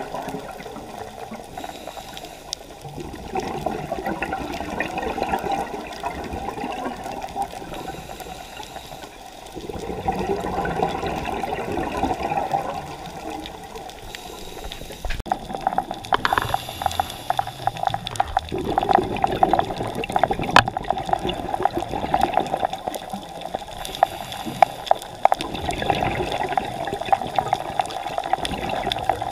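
Scuba diver's breathing through a regulator, heard underwater: gurgling bursts of exhaled bubbles that swell and fade every few seconds, with many short scattered clicks.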